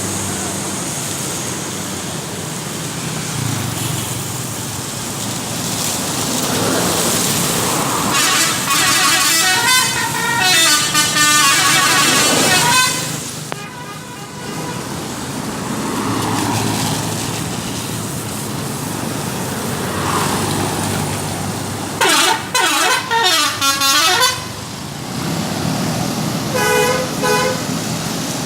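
Laju Prima Super High Deck bus's telolet and strobo horns. About eight seconds in, a long warbling multi-tone horn run lasts about five seconds. Around twenty-two seconds in comes a fast sweeping siren-like run of about two seconds, and short horn toots follow near the end, all over steady background noise.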